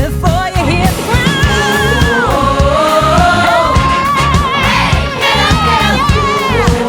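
Pop song with several voices singing long, wavering notes in harmony over a steady beat and bass.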